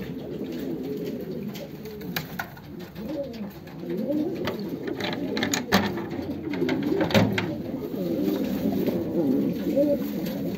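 Many domestic pigeons cooing together in a loft, their calls overlapping continuously. A few sharp clicks or knocks cut through, loudest about six and seven seconds in.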